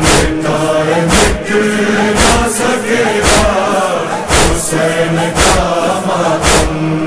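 Noha chorus: several voices chanting over a steady low hum, with a heavy beat about once a second keeping the matam rhythm.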